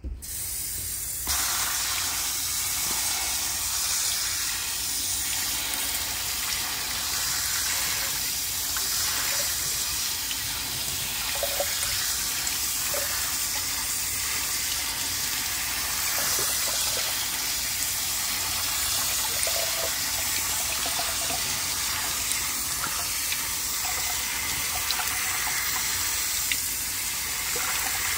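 Kitchen faucet spraying water onto raw rice in a plastic colander, rinsing it, with the water draining through into the sink. A steady hiss that comes on at the start and gets louder about a second in.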